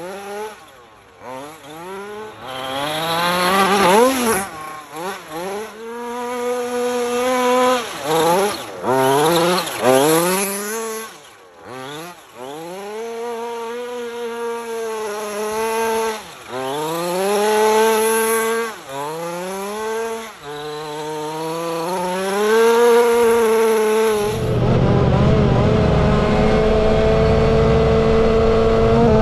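Engine of a 1/5-scale RC rally car revving up and dropping back over and over as it is driven hard across dirt. Near the end it runs at a steadier, higher pitch under a low wind rumble on the microphone.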